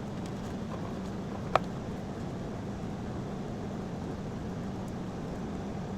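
Steady machine hum and hiss, like a running fan, with one sharp click about a second and a half in.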